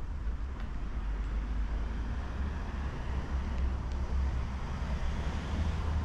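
Road traffic going by on a city street: tyre and engine noise over a steady low rumble.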